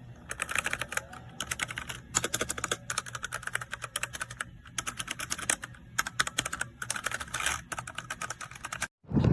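Typing on a Smart Space SK-68 mechanical keyboard with red linear switches: a fast, uneven run of keystroke clacks that stops abruptly near the end.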